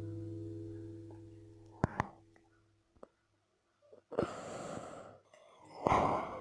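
A sustained guitar chord fades out over the first couple of seconds, followed by a few sharp clicks. Then come two breathy, hissing bursts of breath or whispered voice, the second one louder.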